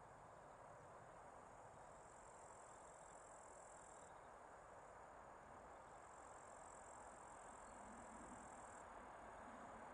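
Crickets trilling faintly, a high steady chirr that stops and starts in stretches of a couple of seconds, over a low, distant rumble that slowly grows near the end as a train approaches.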